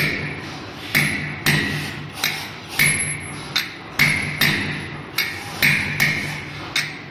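Hammer striking a steel driver cylinder set on a new ball bearing, driving the bearing into an electric scooter's hub-motor cover. About a dozen sharp metallic strikes, roughly two a second, each ringing briefly.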